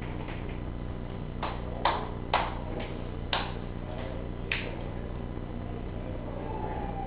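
About seven sharp clicks and taps over three seconds, against a steady low hum.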